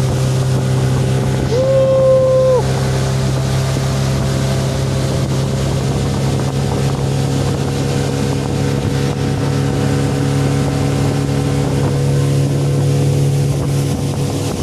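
Speedboat engine running steadily under way. A brief clear tone sounds over it for about a second, about a second and a half in.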